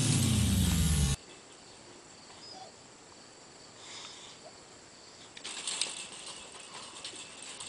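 An electronic intro sound effect sweeping down in pitch cuts off abruptly about a second in. After a few quiet seconds, a dog scrambling up a chain-link fence sets off irregular clinking and rattling of the wire.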